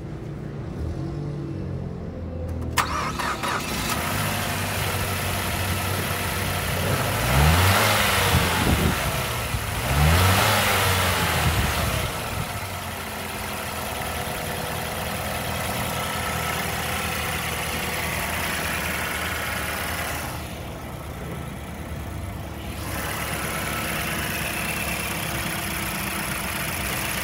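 Mazda CX-7's turbocharged four-cylinder engine idling with the bonnet open. It is revved up and back down twice in quick succession about a third of the way in, then settles back to a steady idle.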